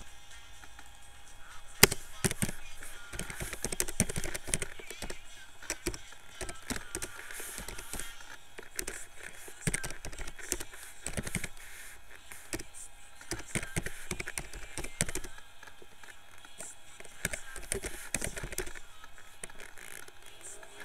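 Computer keyboard being typed on: a run of irregular key clicks, several a second, with short pauses between words.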